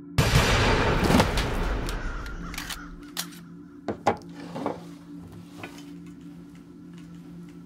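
A sudden loud bang that dies away over about two seconds. It is followed by a few sharp clicks and knocks of objects being handled, over a steady low hum.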